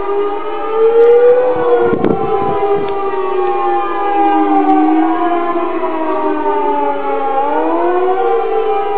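Several civil defense air-raid sirens wailing across the city at once, their tones slowly rising and falling out of step with one another: a rocket alert warning of incoming missiles. A brief knock about two seconds in.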